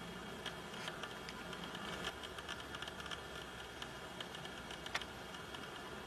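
Faint steady hiss with many small, irregular clicks and ticks scattered through it.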